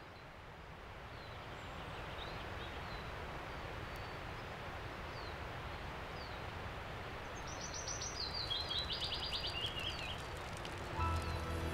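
Steady outdoor background noise with small birds chirping: short falling chirps, then a descending trilling call about three-quarters of the way through. Music comes in near the end.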